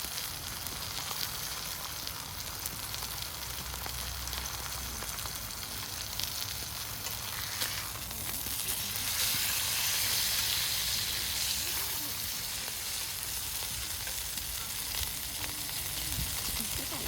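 Meat sizzling as it grills, a steady crackling fizz that swells for a few seconds around the middle.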